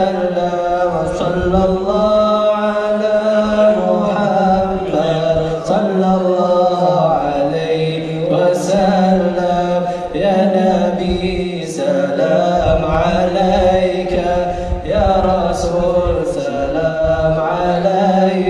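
Men's voices chanting a devotional Arabic song of praise for the Prophet (salawat), in long drawn-out melodic phrases of a few seconds each.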